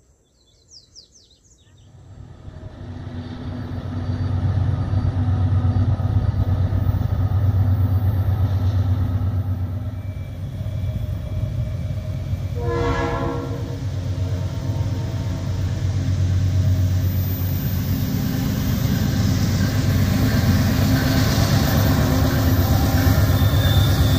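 Diesel locomotive engine running hard as a train climbs a grade, swelling in from about two seconds in and staying loud and steady. Near the middle, one horn blast of about a second.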